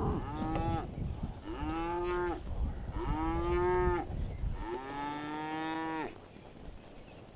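Cattle mooing: four long, drawn-out calls in a row, each about a second long, stopping about six seconds in.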